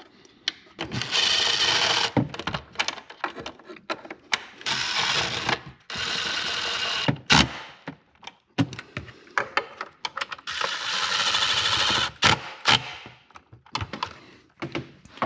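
Cordless ratchet driving the coolant tube bolts back in, in several steady runs of about a second each, with clicks and knocks of the tool and socket between runs.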